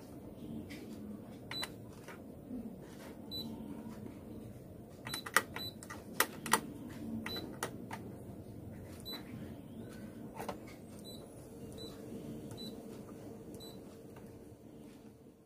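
Control panel of a Canon imageRUNNER copier beeping briefly at each press of its touch screen and keypad buttons, about a dozen short high beeps spread out irregularly. There are a few sharp clicks near the middle, over the machine's low steady running noise.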